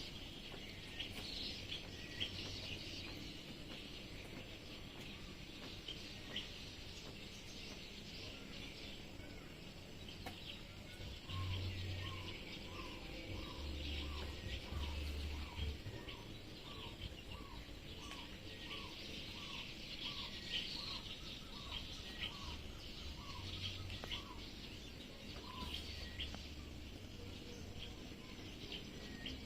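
Birds chirping steadily. In the middle, one call repeats as a run of short notes, about two a second, for roughly ten seconds.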